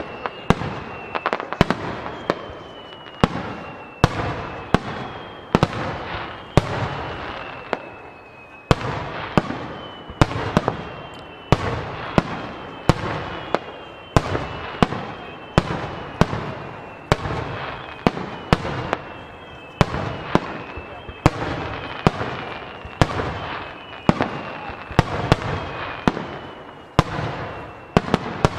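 Starmine fireworks barrage: aerial shells bursting in a rapid string of sharp bangs, about one or two a second, each followed by a crackling tail, with a short lull about eight seconds in. Faint high whistles glide slowly downward in pitch through the bursts.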